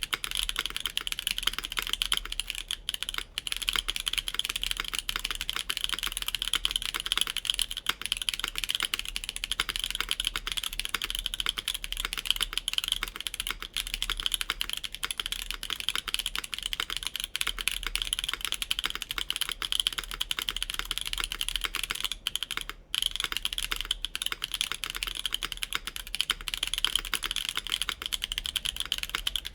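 Continuous typing on a custom o-ring-mounted Bakeneko65 mechanical keyboard with an FR4 plate, Mode Obscura switches lubed with 205g0 and GMK Terminal keycaps: a dense, steady stream of keystrokes, with a brief pause about 23 seconds in.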